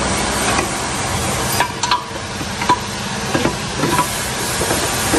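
A handful of short metal clinks and knocks as a rear trailing arm with its hub assembly is handled and lowered, over a steady hiss and low hum.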